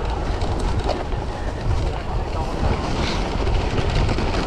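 Steady rush of wind buffeting the microphone while riding a cyclocross bike over packed snow, with a low rumble of the tyres rolling on the snow underneath.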